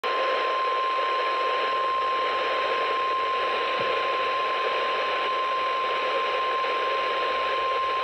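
NOAA Weather Radio warning alert tone: one steady high tone of about 1050 Hz, sounding through a weather alert radio's speaker over an even radio hiss. It is the attention signal that comes before a broadcast warning message, here a severe thunderstorm warning.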